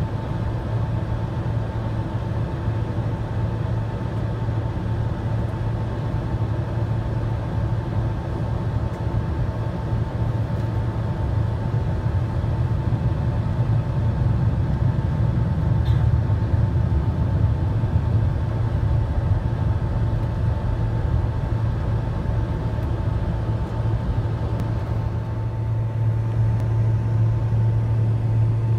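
Boeing 767-300ER taxiing, heard inside the cabin: a steady low rumble of engines and rolling wheels with a constant hum over it, growing a little louder about halfway through.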